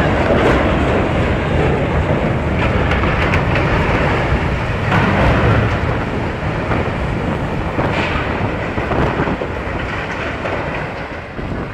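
Large cargo ship running aground at speed: a loud, continuous rough rumble of its hull grinding up the beach.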